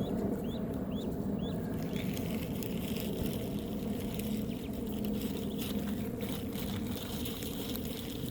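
Ducklings peeping, four short rising peeps in the first second and a half, over a steady low outdoor rumble with faint pattering.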